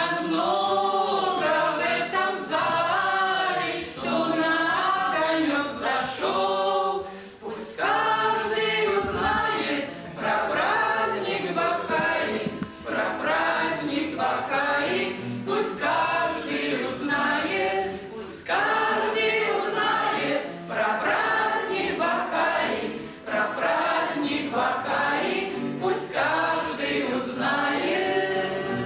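A trio of women singing a song together in harmony, in phrases of a few seconds each with short breaths between.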